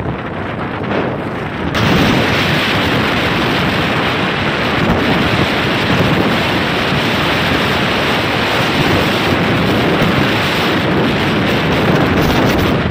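Heavy wind rushing over the microphone of a camera carried on a moving two-wheeler, jumping sharply louder about two seconds in and then holding steady.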